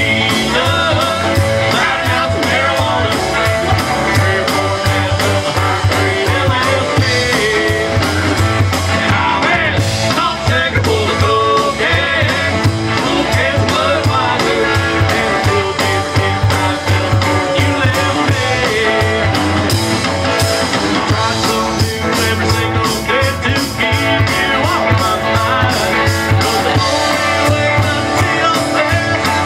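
Live band playing a rock song: a man singing over acoustic and electric guitars and a drum kit.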